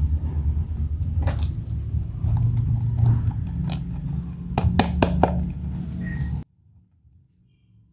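Sharp clicks of plastic toy pieces being handled over a steady low rumble, with a quick run of four clicks past the middle; everything cuts off abruptly near the end.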